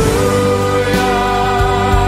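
Background music: a song with a long held note over a steady bass line and a drum hit about a second in.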